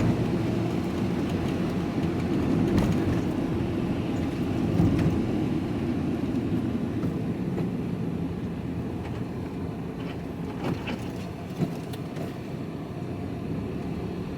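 Truck cab interior while driving: steady diesel engine and road rumble, with a short knock near the end.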